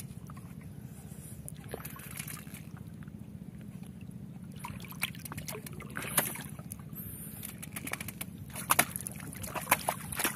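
Water sloshing and splashing around a wooden canoe as a big peacock bass is fought on a hand line. Scattered sharp knocks and splashes come more often near the end, over a steady low hum.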